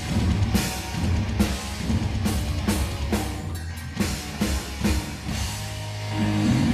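Live heavy metal band playing: distorted electric guitars over bass and a pounding drum kit, with cymbal crashes roughly every half second. Near the end the drumming thins and a held guitar note carries on.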